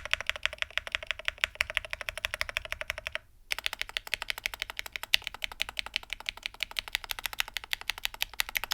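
Fast typing on a stock IQUNIX Ardbeg 65 mechanical keyboard, with IQUNIX Moonstone switches and stock keycaps on an FR4 plate in a CNC aluminium case. The keystrokes come many to the second. They break off briefly about a third of the way in, then carry on.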